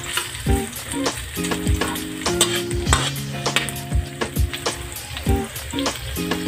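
Garlic, onion and ginger sizzling as they sauté in hot cooking oil in a pan, stirred as they fry toward golden brown. Background music with steady chords and a regular beat plays over the sizzle.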